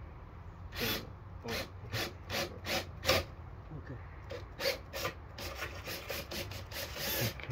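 Irregular rasping strokes, roughly two a second, of something being rubbed or filed against a hard surface.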